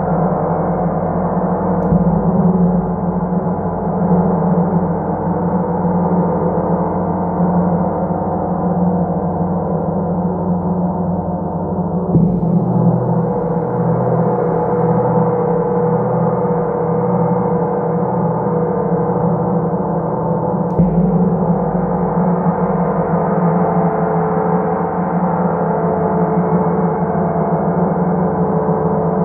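Large gong ringing continuously with many overlapping tones, kept sounding by mallet strokes. New strikes land about 12 and 21 seconds in, and after the first of them a low tone pulses slowly.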